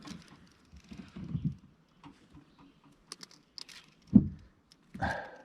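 Scattered small clicks and taps of handling gear in a boat, with one sharp loud thump about four seconds in.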